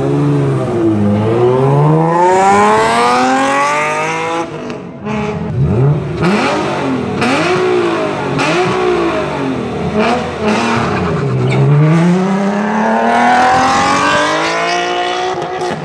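Nissan Z-car V6 engines revving hard through aftermarket exhausts: a long rising rev in the first few seconds, a run of quick throttle blips in the middle, then a long climbing rev as a car accelerates away near the end.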